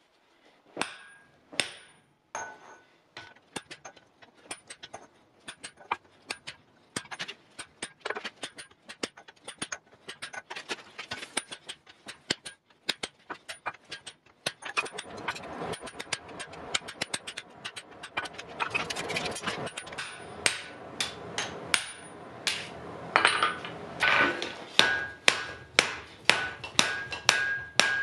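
Hand-hammer blows on a handled hot chisel cutting into red-hot iron on an anvil, each strike sharp with a metallic ring. The blows come sparsely at first, crowd together around the middle, and settle into a steady beat of about two a second near the end, over a steady background noise from about halfway.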